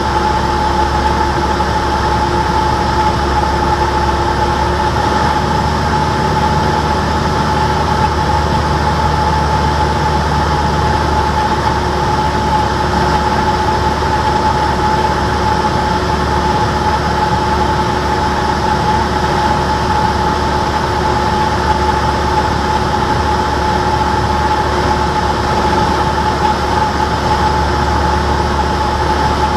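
Cessna 172's piston engine and propeller running steadily in cruise flight, heard inside the cockpit as an unbroken drone with a constant high tone over a low rumble.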